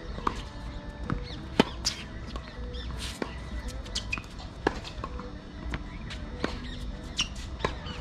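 Tennis rally on a hard court: sharp pops of the ball off racket strings and bounces on the court, about one a second, loudest a little over a second in. Birds chirp throughout.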